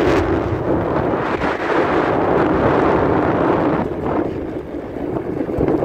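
Wind buffeting the microphone with the engine and road noise of a moving vehicle underneath, a loud, steady rumble.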